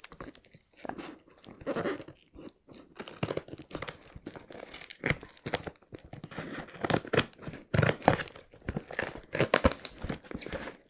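Scissors slitting packing tape on a cardboard box and the tape tearing, then cardboard flaps scraping open. Near the end, crumpled packing paper crackles and rustles as it is pulled out of the box.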